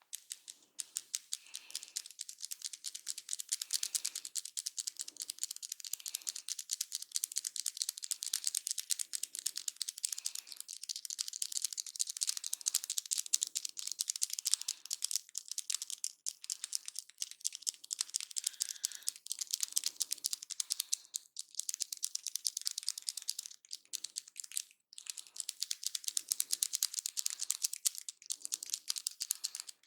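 Dense, rapid crackling of hair being rubbed and scratched against the scalp in a head massage, with a few brief pauses.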